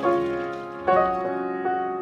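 Background piano music: single notes and chords struck one after another, each fading out.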